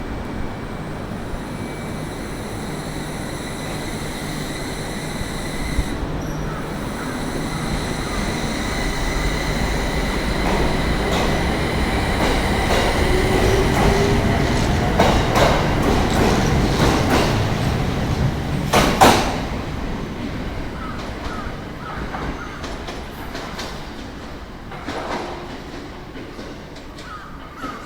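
IGR 7000 series electric train pulling out and gathering speed, its running noise building to a peak about two-thirds of the way through with wheels clacking over rail joints, then fading as it moves away.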